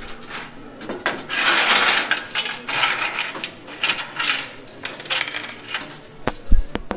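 Coins clattering in a coin pusher machine, a dense rush of metal coins tumbling together that thins out into scattered clinks. A dull thump near the end.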